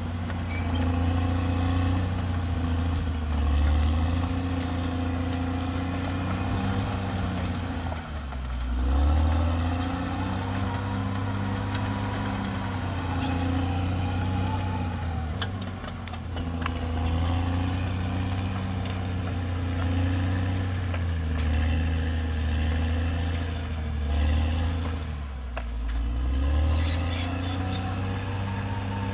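CAT D6R XL bulldozer's diesel engine running under load, its low note sagging and recovering twice, about a third of the way in and again near the end, with faint high-pitched squeaks from the running gear.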